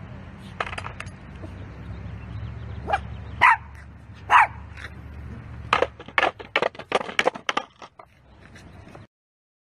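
Small dog barking: two sharp barks about three and a half and four and a half seconds in, then a quick run of short yaps, over a steady low rumble.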